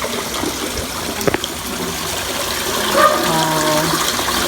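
Steady rushing of water that starts abruptly. A single click comes about a second in, and a voice sounds briefly near the end.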